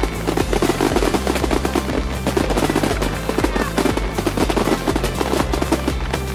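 Fireworks firing in rapid succession, a dense stream of bangs and crackle from aerial shells and ground effects, over music with held bass notes.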